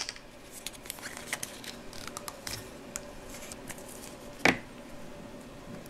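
Hands handling a plastic Play-Doh tub on a wooden table: light clicks and taps, with one louder knock about four and a half seconds in.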